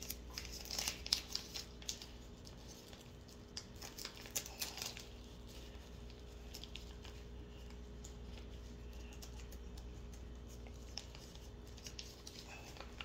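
Small plastic package of split shot sinkers crinkling and crackling as it is handled and torn open, with small clicks. It is busiest over the first five seconds or so, then thins to scattered rustles.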